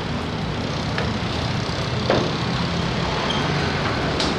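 Steady low rumble of a running vehicle engine in the background, with a short knock about two seconds in and another near the end.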